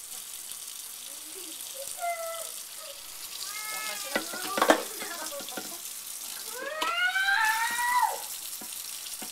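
Kitchen faucet running steadily into the sink while a wet cat being bathed meows in protest: short meows around 2 and 4 seconds in, then one long rising yowl about 7 seconds in. A sharp knock sounds just before the middle.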